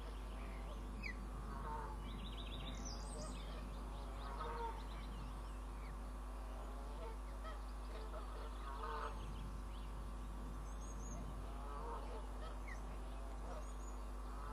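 Ospreys at the nest giving short, repeated chirping calls every one to three seconds, with a few thin high chirps from small birds and a steady hum underneath.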